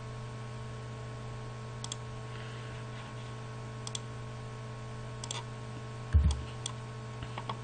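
Computer mouse buttons clicking several times, some in quick pairs, over a steady electrical hum. A dull low thump, the loudest sound, comes about six seconds in.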